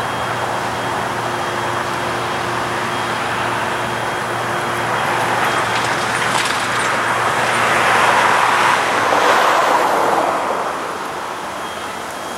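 Road traffic passing at a railroad grade crossing, over a steady low hum; one vehicle passes louder, swelling to a peak about eight seconds in and then fading.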